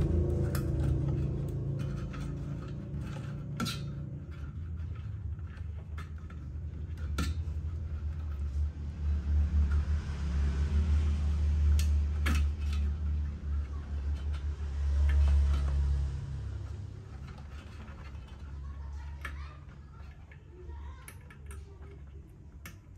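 Small metallic clicks and rattles of wire ends being fitted onto a loudspeaker's terminal tabs on its steel frame, over a low rumble that swells in the middle and fades near the end.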